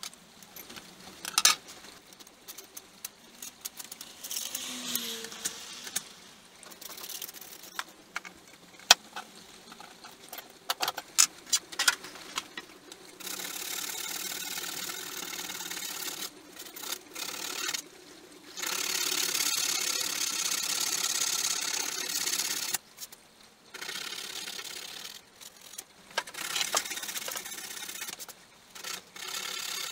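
Compressed-air hand tool on an air line running in steady spells of a few seconds, which fall in the second half. Before them come scattered clicks and scrapes of hand work on a rusty steel seam strip being rubbed back.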